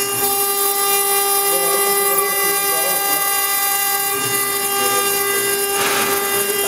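CNC-1218 router's spindle running with a steady high whine while a tapered engraving bit mills a wet stone slab under water coolant, with a grinding hiss from the cut. A brief louder hiss comes about six seconds in.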